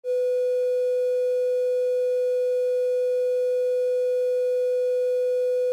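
Bars-and-tone test signal: one steady, unbroken mid-pitched sine tone held at a constant level.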